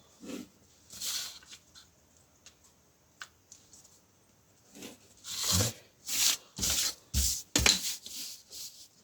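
Rubbing strokes made by hand: a soft one about a second in, then a quick run of six louder strokes, about two a second.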